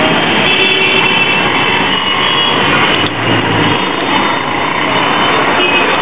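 Busy city street traffic heard up close: the engines of auto-rickshaws, a bus and motorcycles passing in a steady, loud din.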